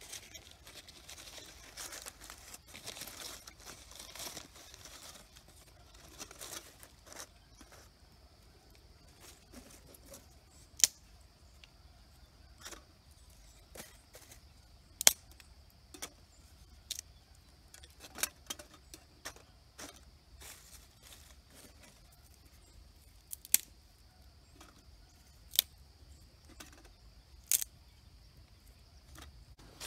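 Small dry twigs snapping one at a time, about half a dozen sharp cracks spread out, with soft crinkling of dry leaves early on as they are broken and packed into a small titanium fire box as kindling.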